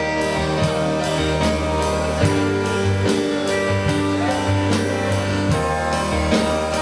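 Live worship band playing an instrumental passage: steady drum kit beat with bass and guitar chords.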